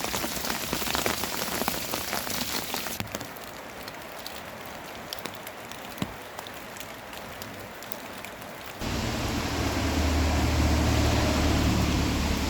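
Rain pattering, with dense close drops for the first three seconds, then a quieter hiss with scattered drops. About nine seconds in it switches suddenly to a louder, steady low rushing noise.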